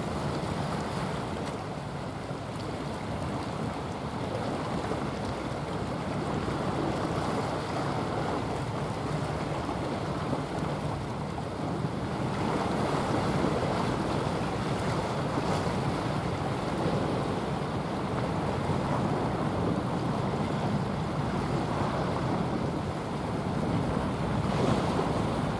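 Steady rushing of wind and sea with a low rumble as a small coastal container ship passes, wind buffeting the microphone. It grows a little louder about halfway through.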